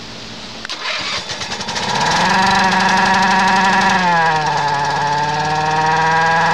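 Small gas engine on a System 1 seed jet being started: it cranks about a second in, catches and settles into a steady run. About four seconds in the engine speed drops, then slowly creeps back up.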